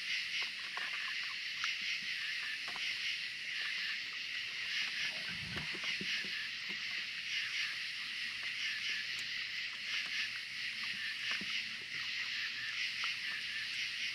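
A steady, high, shrill chorus of night insects, with small clicks and smacks of raccoons chewing food off the wooden table and a soft low thump about five seconds in.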